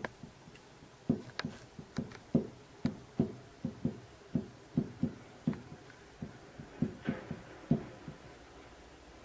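Heated nakhwa iron dabbed again and again onto hanji paper, burning in small marks: an uneven run of soft, short taps, two or three a second, that stops near the end.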